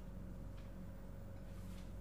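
Quiet room tone with a steady low electrical hum.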